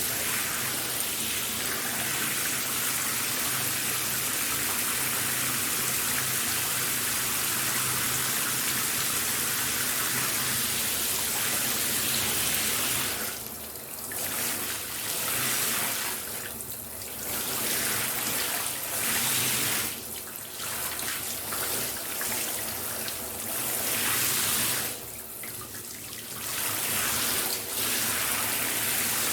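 Shower spray running, an even hiss of water falling. About halfway through, the sound drops away and comes back several times.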